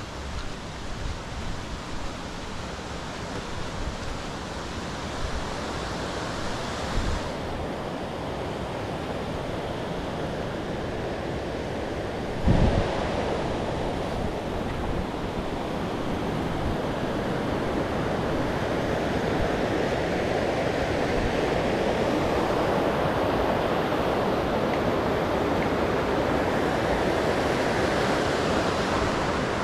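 Steady rush of a mountain stream or waterfall, slowly growing louder, with a single knock about twelve seconds in.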